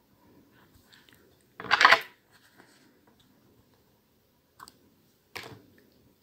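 Small scissors snipping sewing thread, two short sharp clicks in the second half. Before them, about two seconds in, a brief louder rustle of thread and fingers being handled.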